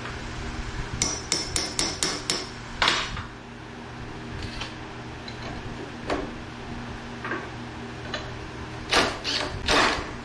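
Cordless impact driver hammering in short bursts on a bench grinder's arbor nut to loosen it and free the wheel: a run of sharp knocks about four a second early on, then single knocks and a final cluster near the end.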